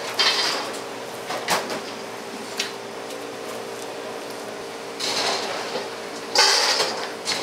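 Knife scraping and cutting against a wooden cutting board in uneven strokes, with a couple of sharp knocks, over a faint steady hum.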